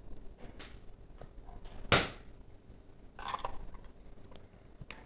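Spatula scraping and knocking against a stainless steel pan while stirring whole spices frying in oil, with one sharp clack about two seconds in and a rougher scrape about a second later.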